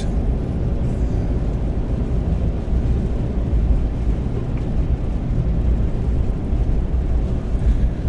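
Steady low rumble of a 2019 Ram 2500's 6.7-litre Cummins inline-six turbo diesel and its tyres at highway speed while towing a gooseneck trailer on snowy pavement, heard inside the cab.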